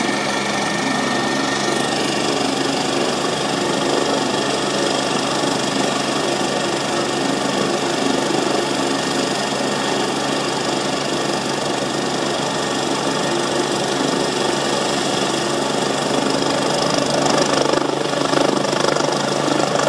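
Small petrol engine of a mowing machine running steadily under load as it cuts tall meadow grass.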